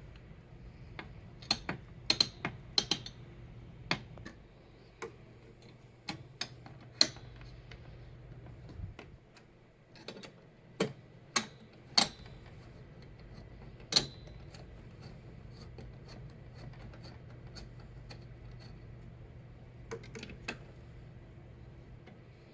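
Irregular sharp clicks and taps of a screwdriver and hardware as the stock CPU cooler is fastened down onto the motherboard, over a low steady hum. The clicks come in clusters, with the loudest about 2, 7, 11, 12 and 14 seconds in.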